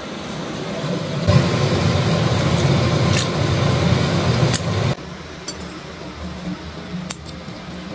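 Steady noise of a gas stove with water at a rolling boil in a wok as hand-pulled laghman noodles are dropped in. It cuts off suddenly about five seconds in, leaving quieter kitchen noise with a few light clicks.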